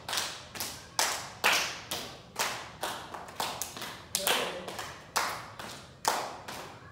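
Several people sitting in a circle clapping their hands in a steady beat, about two claps a second, with an occasional extra clap between the beats.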